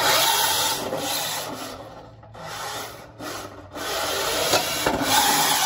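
Six-wheel brushless robot drivetrain (Castle 2028 motors through Banebots P8X gearboxes) driving across concrete: a loud gritty rush from motors, gears and wheels. It starts abruptly, surges and drops out briefly a few times about two to four seconds in, then runs hard again.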